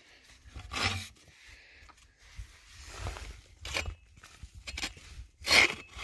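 Several separate scrapes and rubs of a steel drill rod being worked by hand in a drill hole in rock, the loudest near the end.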